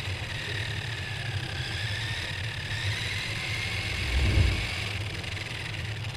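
RC car driving on asphalt, heard from on board: a steady low rumble from the tyres and drivetrain with a thin motor whine that wavers in pitch as the speed changes, and a brief low swell about four seconds in.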